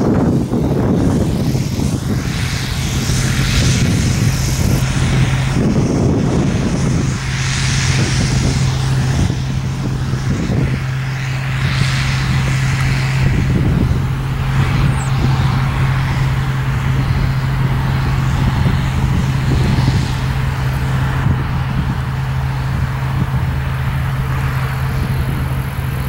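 Case IH 1660 combine harvesting soybeans, with a tractor pulling a grain cart running alongside. Their engines make one steady low hum throughout, under a rushing noise that rises and falls.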